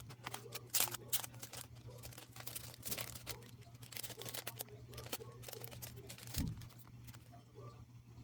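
Album packaging and paper or plastic inserts being handled: irregular rustling, crinkling and small clicks, with a dull thump about six seconds in, over a steady low hum.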